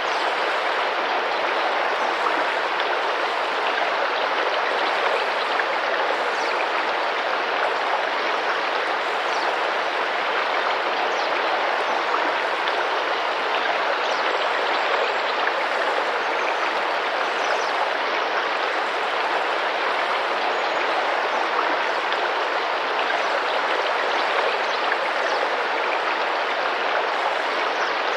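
Tropical rainforest river running and splashing steadily over rocks. A few faint, short, high bird calls come through it now and then.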